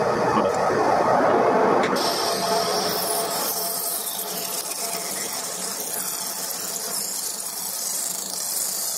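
TOS SN63B metal lathe taking a facing cut with a carbide insert across a hub face: a steady mechanical running noise, then about two seconds in a loud hissing scrape of the cut begins. A faint whine in that hiss slowly falls in pitch.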